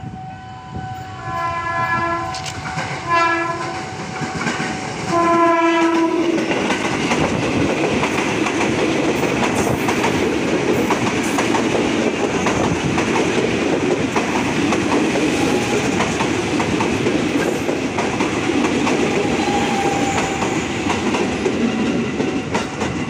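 An electric commuter train sounds its horn in three blasts over the first six seconds, the last one the longest. It then passes close by at speed, with a steady loud rush of wheels on rail.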